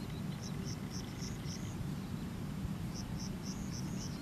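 An insect chirping in short phrases of about five quick high chirps, each phrase repeating roughly every second and a half, over a steady low background rumble.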